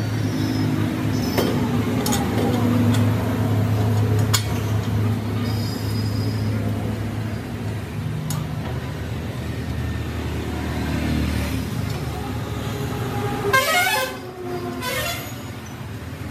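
A vehicle engine hums steadily in the background, with a few sharp metal clinks as the aftermarket silencer and tools are handled. Near the end a vehicle horn sounds briefly, its pitch sliding.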